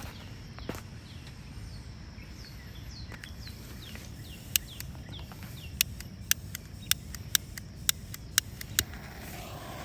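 A run of short, sharp clicks, about a dozen spread irregularly over the last five seconds, over a low outdoor background. Faint high chirps that fall in pitch come a few times in the first half.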